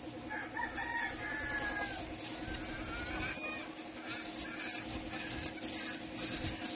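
A rooster crowing about half a second in, with the hiss of an air spray gun in short bursts, most of them in the second half. A steady hum runs underneath.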